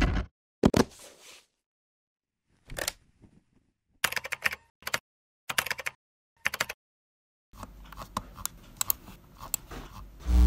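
Computer keyboard typing: short runs of quick key clicks with pauses between them, growing denser over a faint low hum near the end. It opens with a couple of dull knocks.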